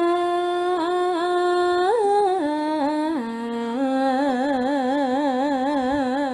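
A Javanese sinden, a female gamelan vocalist, singing solo with no clear accompaniment. She holds long notes, ornaments a high note about two seconds in, and steps down in pitch twice. From about four seconds in she holds a lower note with a wide, even vibrato.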